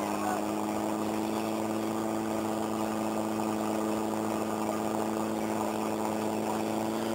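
Portable fire-brigade pump engine running steadily with a constant pitch, pumping water from the tank out into the attack hoses.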